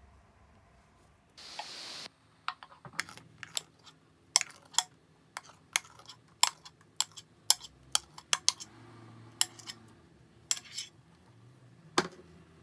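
Metal spoon knocking and scraping against a glass bowl while thick cream is spooned out of it, making a string of sharp, irregular clinks. A short hiss comes just before them.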